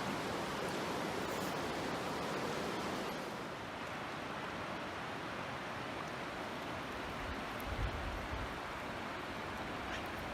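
Steady rush of river water flowing over rocks, its hiss thinning slightly a few seconds in, with a brief low bump about eight seconds in.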